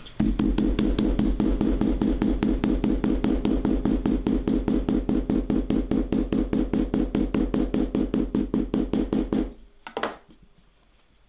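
Small steel-headed hammer tapping rapidly and evenly on a leather wallet lying on a wooden bench, about six light blows a second, flattening the hand stitches into the leather. The tapping stops near the end, followed by one single knock.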